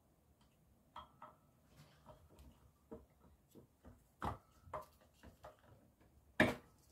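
Scattered light metallic clicks and clinks as an ABS pump motor is pushed and seated onto the ABS hydraulic block held in a vise, with a louder knock near the end.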